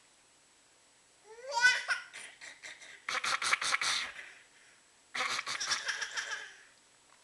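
A girl laughing: a rising vocal sound about a second in, then a bout of rapid, pulsing laughter, and a second bout about five seconds in.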